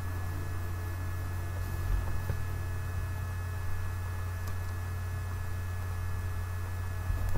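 Steady low electrical hum with faint hiss and a thin, steady high tone.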